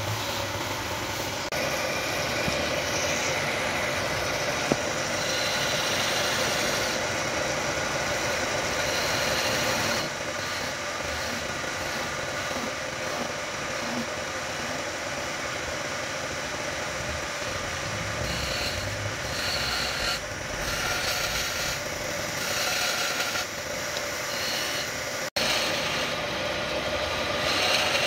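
Wood lathe running steadily while a turning chisel cuts into the spinning wooden blank: a scraping hiss that swells and fades as the tool is pressed in and eased off, over the steady hum of the lathe. The sound cuts out for an instant near the end.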